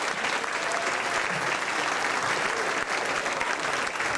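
Comedy-club audience applauding steadily, dense clapping with some cheering.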